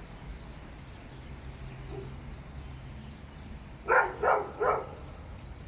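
A dog barking three times in quick succession about four seconds in, over a low steady hum.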